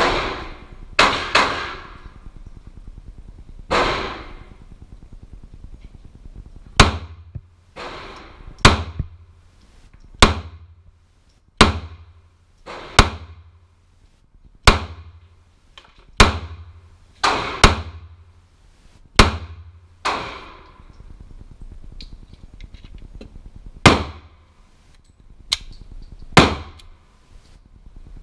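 Gunshots from a 9mm Smith & Wesson M&P Shield pistol, fired one at a time at a steady pace of roughly one every one to one and a half seconds, with a couple of quick doubles and a pause near the end. Each sharp crack rings out in the echoing concrete range.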